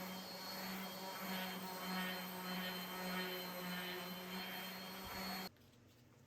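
Steady machine hum with a held low drone and a thin high whine, which cuts off abruptly about five and a half seconds in, leaving faint room tone.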